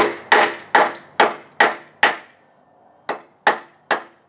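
A stick of wood used as a baton knocking on the hammer poll of a CRKT Woods Chogan tomahawk's carbon-steel head, driving it like a wedge into a length of wood. About nine sharp knocks at roughly two a second, with a pause of about a second partway through and lighter knocks after it.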